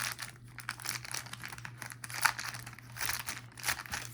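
Plastic packaging bags crinkling and rustling in irregular bursts as they are handled and torn open by hand to unwrap a combination lock.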